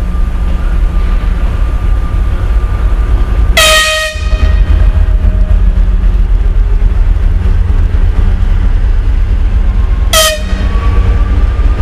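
TEP70 passenger diesel locomotive approaching, its V16 diesel engine giving a loud, steady low rumble. Its horn sounds a short toot about four seconds in and a shorter one near the end, and a thin whine rises slowly in pitch over the last second or so.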